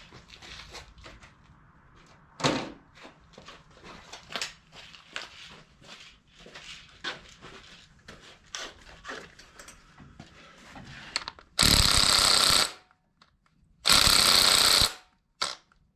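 A series of small clicks and knocks of tool handling, then a small cordless impact gun hammering on a cylinder head bolt in two bursts of about a second each and a brief blip, its battery nearly dead.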